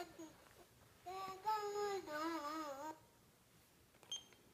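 A high voice singing a short held phrase, its last notes wavering up and down, followed near the end by a brief faint high blip.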